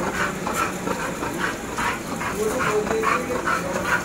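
American Bully dog making short, repeated breathy sounds, two or three a second, with a brief higher tone about two and a half seconds in.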